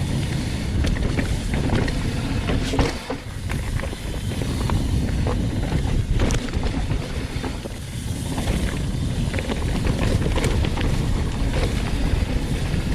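Wind buffeting the action-camera microphone while riding a 2019 Commencal Meta HT hardtail mountain bike down a loose dirt trail, with tyre noise and scattered clicks and rattles from the bike over the ground.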